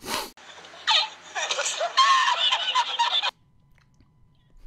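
High-pitched, squeaky laughing voice after a short breathy burst, cut off abruptly about three seconds in.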